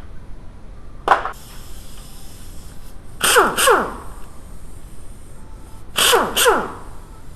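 A power tool run in short bursts: one brief burst about a second in, then two pairs of quick bursts, each winding down with a falling whine.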